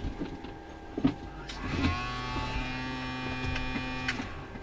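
A few switch clicks, then a small electric motor whine in the Beechcraft Bonanza A36 cockpit. The whine rises briefly just under two seconds in, holds steady, and cuts off about four seconds in. It is part of the pre-start checks before the engine is started.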